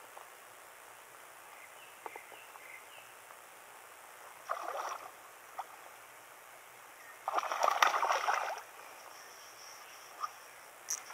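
Hooked bass thrashing and splashing at the water surface as it is played on the rod: a short burst of splashing about four and a half seconds in, then a longer, louder one from about seven to eight and a half seconds. A steady high chirring of insects runs underneath.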